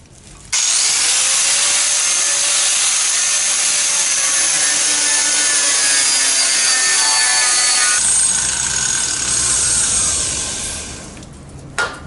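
Handheld angle grinder cutting into the steel of a truck frame, throwing sparks. The disc starts about half a second in and runs steadily under load with a shifting whine, then lets off about eight seconds in and winds down over the next three seconds.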